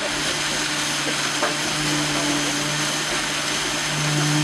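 Concrete vibrator running in fresh concrete, a motor hum that swells and eases every second or two over a background of rushing noise.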